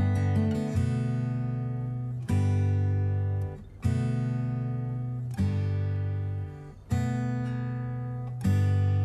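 Background music: an acoustic guitar strumming a new chord about every one and a half seconds, each chord left to ring and fade.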